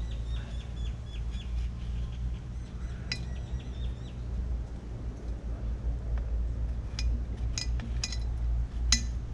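Sharp metallic clinks of a bottle-opener grater scraping and tapping a coconut: one about three seconds in and four in quick succession near the end. Earlier, a bird chirps in a rapid run of short high notes.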